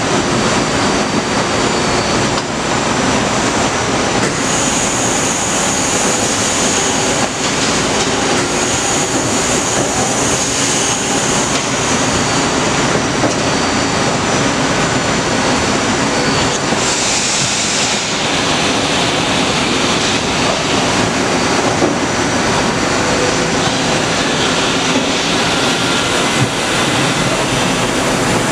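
1999 Haas VF-3 CNC vertical mill running a program under power: steady machine noise with a high spindle whine that comes and goes and shifts pitch.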